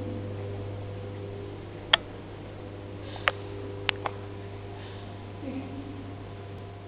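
Minimal electronic sound installation: a steady low hum layered with a few faint, steady higher tones, cut by sharp single clicks, one about two seconds in and three more in quick succession a second or so later.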